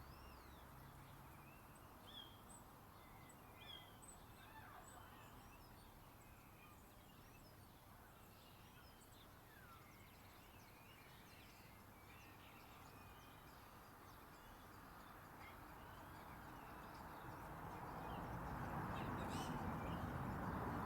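Birds chirping: many short, faint calls scattered over a steady background hiss. A broad rushing noise swells up near the end and becomes the loudest sound.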